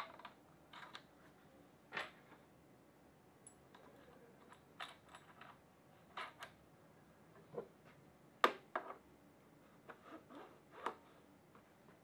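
Scattered light clicks and taps of headset spacers and a stem being slid and pressed onto a mountain bike fork's steerer tube, with the sharpest click a little past the middle.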